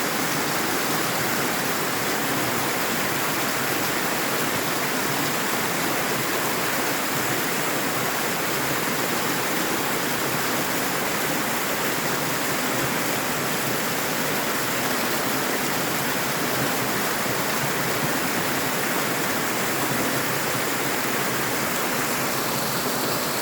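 Waterfall: water rushing and splashing steadily.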